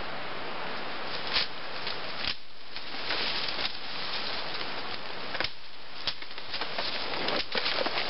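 Dry leaves and brush rustling as someone works in undergrowth, with several sharp knocks or cracks and a busier patch of them near the end.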